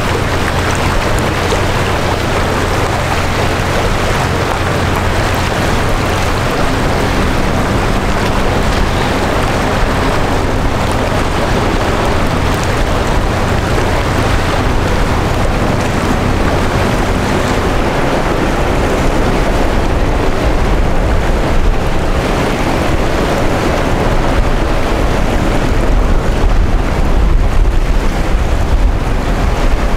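Wind buffeting the microphone over choppy water, with a steady low hum from the passing crude oil tanker's engine that fades after the middle. The wind grows gustier near the end.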